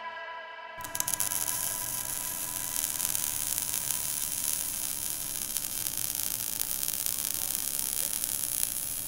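Fizzing, crackling hiss of burning sparks, like a sparkler, starting suddenly about a second in and holding steady. It is a sound effect for sparks drawing out a logo. A held musical chord fades away just before the hiss begins.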